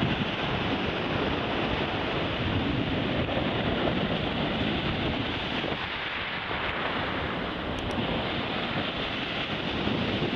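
Sea surf breaking and washing up the beach, a steady rushing noise, with wind buffeting the microphone.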